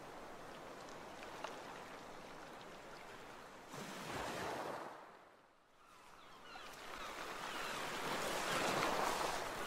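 Ocean waves washing and surging, a steady rushing that fades almost away about five and a half seconds in, then swells back up, loudest near the end.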